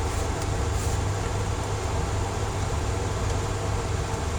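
Steady blower noise of a clean-air cabinet's fan running, a constant low hum under an even rush of air.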